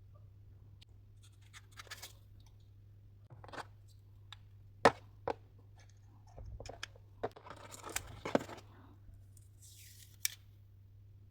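Hands handling and opening a tablet's packaging: rustling and tearing with scattered sharp clicks and taps. The loudest is a single sharp click about five seconds in.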